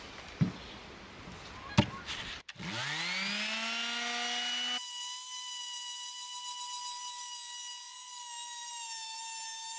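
Two sharp knocks, then a Makita palm finishing sander is switched on. Its motor whine rises in pitch as it spins up, then holds as a steady high-pitched whine while it sands the timber top.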